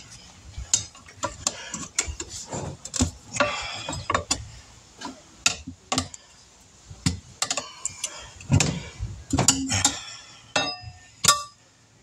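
Steel tire irons clinking and scraping against a motorcycle wheel rim as the tire bead is levered over it by hand: irregular sharp metal clicks, some ringing briefly.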